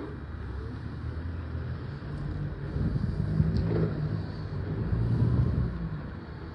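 A motor vehicle's engine running, its low hum swelling louder in the middle and then easing off, like a car pulling past.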